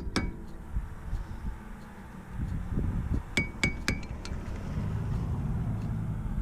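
Sharp metallic taps that ring briefly, as a screwdriver is tapped against a metal part on the rear wheel hub to work it loose. There is one tap just after the start and three quick taps a little past three seconds in, over low wind rumble on the microphone.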